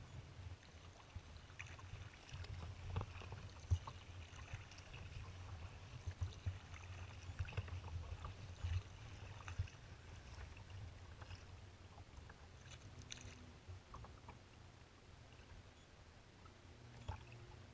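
Faint splashing and lapping of choppy water around a kayak under way, with scattered small splashes. Under it runs a low, steady wind rumble on the microphone.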